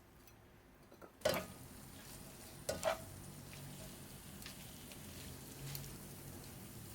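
Quiet at first, then a utensil clanks against a pan about a second in and twice more close together near three seconds, followed by a low, steady sizzle of food frying in the pan.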